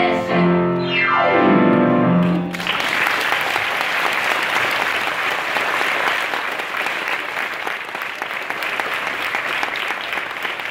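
A song with piano accompaniment ends with a falling run and a final chord about two and a half seconds in. An audience then breaks into steady applause that carries on to the end.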